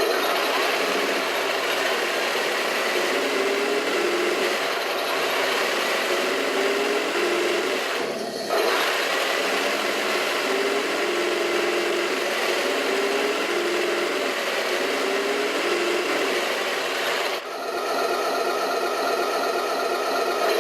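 Heng Long radio-controlled model's electronic sound unit playing an engine-running effect through its small speaker, steady with a rattling texture and wavering pitch. It dips briefly about eight seconds in and again near the end.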